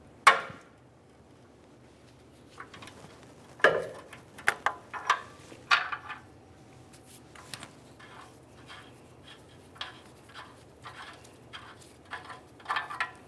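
Ratchet and O2 sensor socket clicking and clinking while unscrewing a downstream oxygen sensor from the exhaust pipe: one sharp click just after the start, then scattered light metallic clicks in small clusters.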